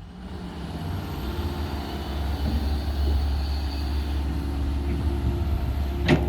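Diesel engine of heavy digging equipment running steadily with a low hum, growing louder over the first couple of seconds, with one sharp click near the end.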